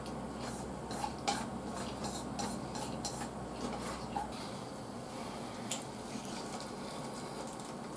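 Chopsticks tapping and scraping on a plate as food is picked up, a scatter of light clicks with a sharper one about a second in and another late on.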